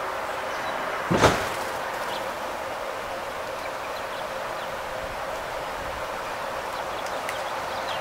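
Steady outdoor hiss of a light breeze, broken about a second in by one brief loud thump, with a few faint, short, high bird chirps.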